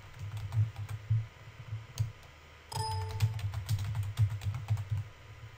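Typing on a computer keyboard in two short runs of quick keystrokes, with a brief tone sounding once about three seconds in.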